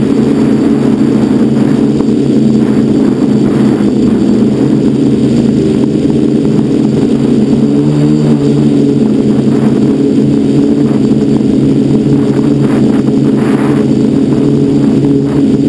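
FPV quadcopter's electric motors and propellers buzzing loudly and steadily in flight, heard from the camera mounted on the quad. The pitch wavers slightly as the throttle changes.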